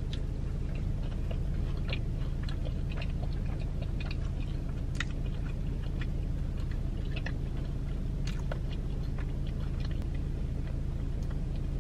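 A person chewing a mouthful of pizza, with soft, scattered mouth clicks and smacks over a steady low hum.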